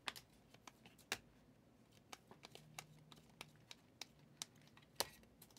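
Prizm football trading cards being thumbed through in a stack: faint, scattered flicks and clicks, the sharpest about a second in and again near the end.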